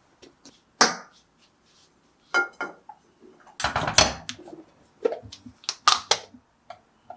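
Irregular clicks, knocks and clatter of kitchen items being handled and set down, with a heavier knock about three and a half seconds in.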